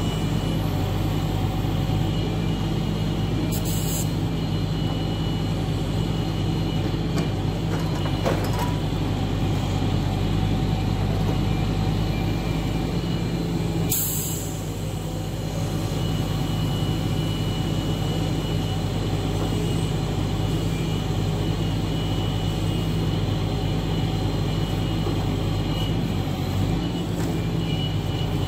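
Log truck's engine running steadily while its hydraulic knuckle-boom loader crane lifts logs off the trailer. Two brief sharp sounds are heard, about 4 and 14 seconds in.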